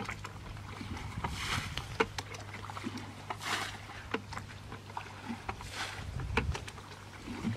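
Muddy water being bailed with a cut-open plastic drum. There are three splashes of thrown water about two seconds apart, with a few sharp knocks of the drum in between.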